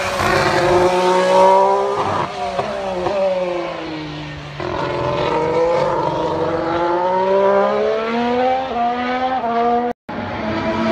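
2017 Formula 1 cars' turbocharged V6 engines heard from trackside. The pitch drops as a car slows and downshifts, then climbs in steps through the gears as it accelerates. The sound cuts out for an instant near the end, and another car's engine comes in climbing.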